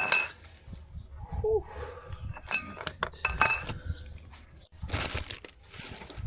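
Metal tools clinking as a wrench and Torx bit work the nut and bolt of a car's front suspension compliance link: several sharp, ringing clinks, with a short scraping rustle about five seconds in.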